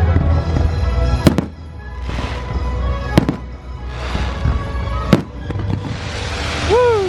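Fireworks shells bursting over the show's music: three sharp bangs about two seconds apart, each followed by a hiss.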